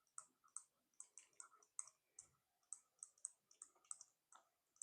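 Faint computer keyboard typing: irregular key clicks, about three a second.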